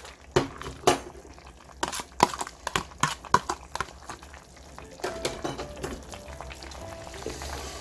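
Kitchen clatter at a pot of simmering beef and radish soup: a quick run of sharp clinks and taps from utensils against the pot over the first few seconds, then the soup bubbling steadily at a simmer.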